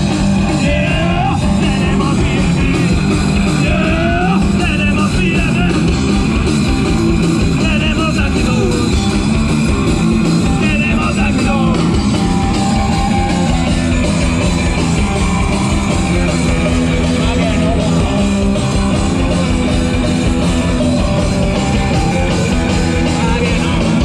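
Live rock band playing through a PA: amplified electric guitar, bass and drums at a loud, steady level, with vocals coming in at times.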